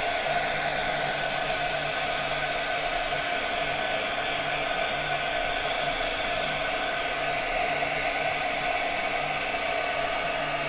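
Handheld craft heat tool blowing steadily, a constant rush of air with a steady hum under it, drying spray adhesive and glitter on a cardstock heart.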